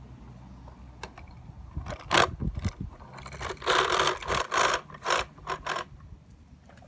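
Diecast toy rear-loader garbage truck handled by hand, its plastic and metal parts scraping and clicking in short bursts: one about two seconds in, then a quick run of them between about three and a half and six seconds in.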